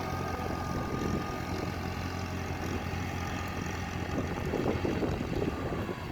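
An engine running steadily with an even low hum and a faint high tone above it.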